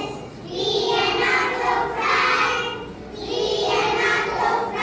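A group of young children singing together in short, evenly spaced phrases, each about a second long with brief breaks between.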